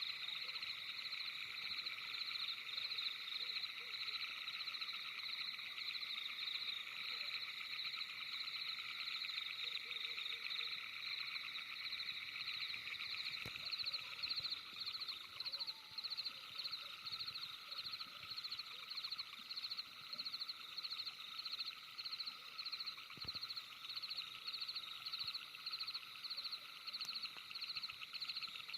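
Steady night-time chorus of calling animals: a dense, high, rapidly pulsing trill that runs on without a break. In the second half it takes on a slower regular throb about once a second.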